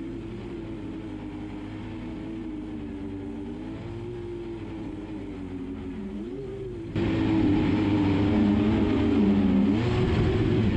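Quadcopter drone's electric motors and propellers whirring, the pitch wavering up and down as it is held against gusty wind. The sound jumps abruptly louder about seven seconds in.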